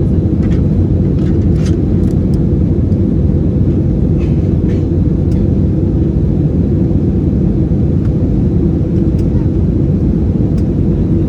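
Steady, loud cabin roar of an Airbus A320-216 at high power, from its CFM56 jet engines and airflow, heard from inside the passenger cabin. A few faint clicks sound over it.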